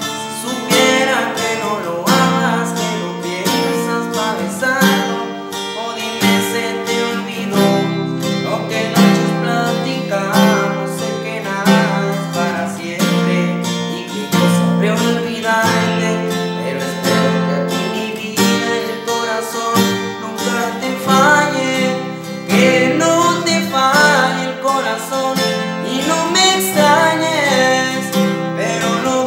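A young man singing in Spanish over a strummed acoustic guitar with a capo, chords ringing steadily under the melody.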